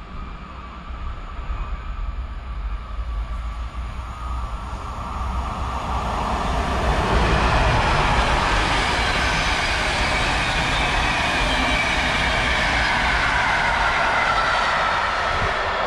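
Locomotive-hauled passenger train passing through the station on the far track, growing louder from about six seconds in, then the coaches rolling past steadily, with a whine that falls slowly in pitch.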